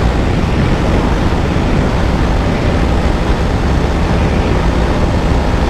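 KTM Duke 200's single-cylinder engine running at high revs in sixth gear near top speed, under a heavy, steady wind rush over the microphone.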